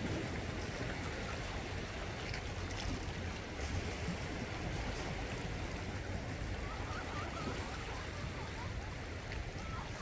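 Small sea waves washing steadily over and around black basalt rocks along the shoreline, a continuous low rush of surf and water.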